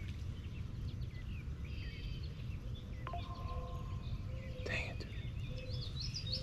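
Small birds chirping and singing, with a quick run of rising notes near the end, over a steady low background rumble. A brief rush of noise comes about five seconds in.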